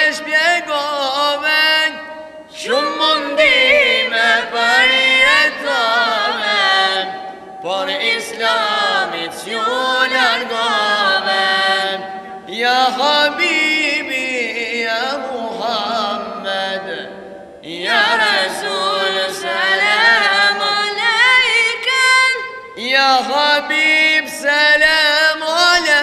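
Boys' voices singing an unaccompanied Islamic nasheed, with long, ornamented, wavering notes in phrases of a few seconds separated by short breaths.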